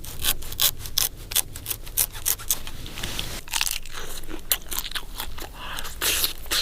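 Crisp crunching as raw Chinese windmill palm heart is bitten and chewed, a quick run of sharp crunches.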